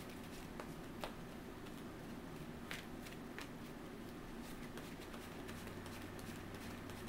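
A few faint, sharp taps and rustles of trading cards being handled and laid down on a table, over a steady low room hum.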